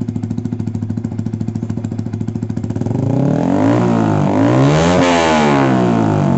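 Motorcycle engine with an SC Project titanium-type aftermarket exhaust, its valve open, idling with a steady beat, then revved once about three seconds in: the pitch climbs for two seconds, peaks and falls back toward idle near the end. Loud and bassy, ear-splitting.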